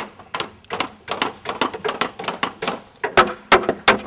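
A rapid, uneven run of sharp knocks and clacks, about four a second, growing louder in the last second.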